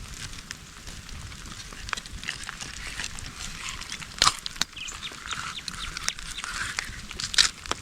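Wood campfire crackling, with scattered sharp pops and two louder pops about four seconds in and near the end.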